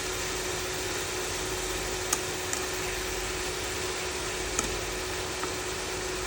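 Thin chicken slices sizzling in hot oil in a frying pan, a steady hiss with a few sharp pops, over a steady low hum.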